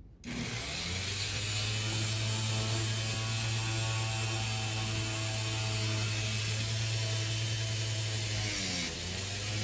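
An electric woodworking power tool switching on and running steadily with a motor hum and hiss; near the end its pitch dips and wavers, as when the tool takes load.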